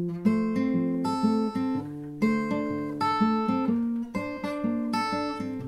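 Instrumental passage of an acoustic band song, without singing: plucked strings pick out a run of notes, several a second, each struck sharply and fading.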